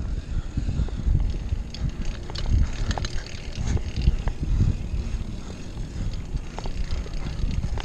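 Bicycle riding over concrete and brick paving, heard as wind buffeting the camera microphone in uneven low gusts along with tyre rumble and scattered light clicks from the bike.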